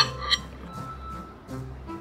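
Background music with soft held notes, with a few light clinks of a knife and fork on a ceramic plate.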